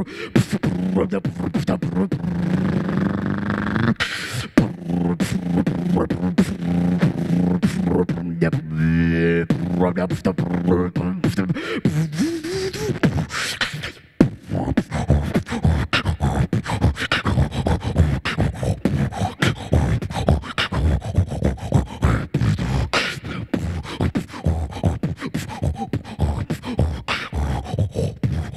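Vocal beatboxing into a handheld microphone: for about the first twelve seconds a held, hummed bass tone under quick clicks, with a wobbling pitch and then a rising glide. After a brief break about fourteen seconds in, a fast, dense percussive beat.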